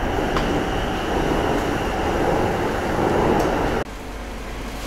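Cabin noise of an MRT Blue Line metro car in motion: a steady rumble and hiss that grows a little louder, then drops suddenly about four seconds in to the quieter, even hum of the train standing at a station with its doors open.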